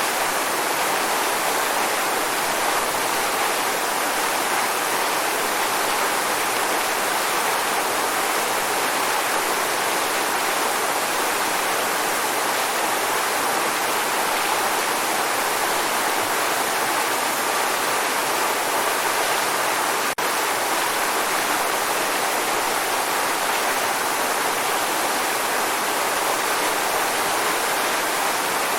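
Waterfall: a steady, even rush of falling water, with a momentary drop-out about twenty seconds in.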